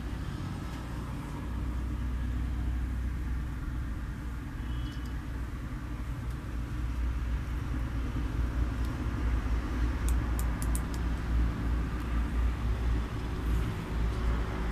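Steady low rumble throughout, with a quick run of faint clicks about ten seconds in.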